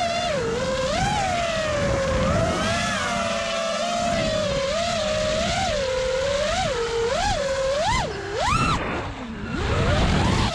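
Armattan Badger FPV freestyle quadcopter's motors whining, the pitch rising and falling with each throttle punch. Near the end the pitch climbs sharply, drops away, then sweeps up again with a rush of air.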